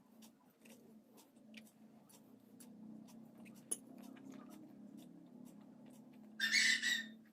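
Someone eating poha (flattened rice), with small wet mouth clicks of chewing over a low steady hum. About six and a half seconds in comes a louder half-second burst of hissy noise.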